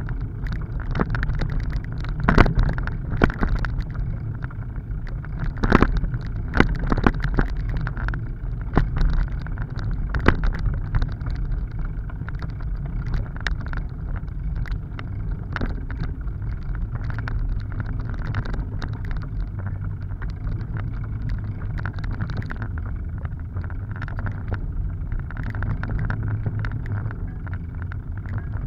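Bicycle riding over a dirt forest trail: a steady low rumble of tyres and frame vibration, with sharp knocks and rattles as it goes over bumps, most frequent in the first ten seconds.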